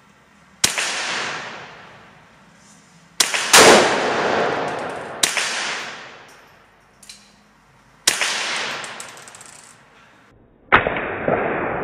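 Baikal MP161-K semi-automatic .22 rimfire rifle firing six single shots at an unhurried, uneven pace, two of them close together about three seconds in. Each crack is followed by a long echo of the indoor range.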